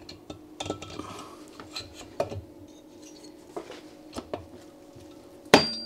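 Light metallic clinks and taps as a Ducati Hypermotard 1100S cylinder head is eased down over the cylinder studs onto the barrel, with one sharp, ringing clank near the end.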